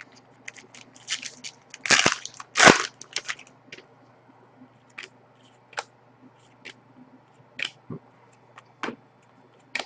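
Trading cards being handled and flipped through by hand: crisp card clicks and snaps, with two louder rustles of the card stack about two seconds in, then single clicks roughly once a second.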